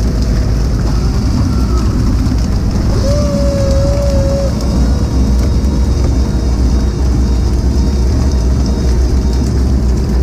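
Steady low rumble of a salmon seine boat's engine running, with water churning along the hull. A brief whistle-like tone sounds about three seconds in.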